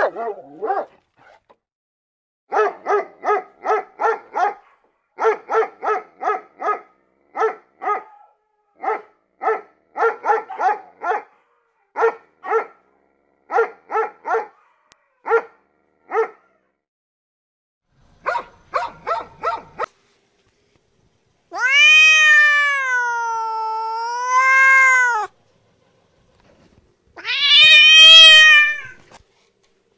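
A dog barking in quick groups of short barks, about three a second, with pauses between groups. Then a domestic cat meows twice: one long drawn-out meow that dips and rises in pitch, then a shorter meow near the end.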